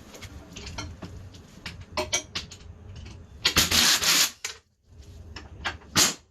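Metal tools and parts clinking and clattering, with a louder dense rattle about three and a half seconds in and a sharp knock near the end.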